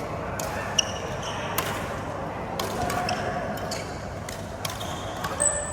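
A badminton rally: rackets striking the shuttlecock in a string of sharp hits about a second apart, with brief squeaks of shoes on the court floor, in a large echoing hall.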